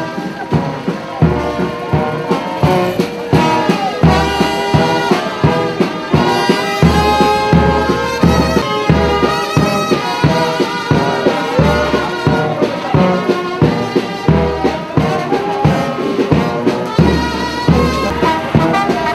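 Music led by brass instruments, with trumpet- and trombone-like lines over a steady beat.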